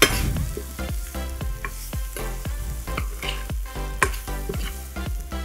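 Stir-frying fried chicken with onion and kaffir lime leaves in a stainless steel pan: a metal spoon knocks and scrapes against the pan a few times a second over a steady sizzle.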